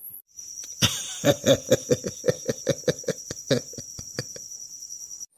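Cartoon sound effect: a high, steady cricket-like chirring, with a sharp hit about a second in and a rapid run of short pulses, about four or five a second, underneath.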